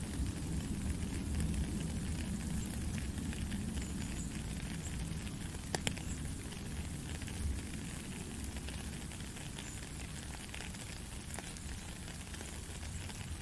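Steady rain pattering into a puddle and onto wet gravel: a dense hiss of small drop ticks, with one sharper drop tick about six seconds in.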